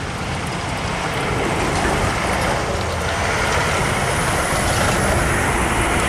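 Steady rushing background noise with a flickering low rumble, even in level throughout.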